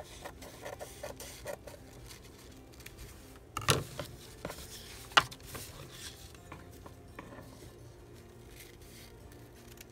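Scissors snipping through thin paper napkin and the napkin being handled on a desk, with light rustles and clicks. There is a louder clatter about three and a half seconds in and one sharp click about five seconds in.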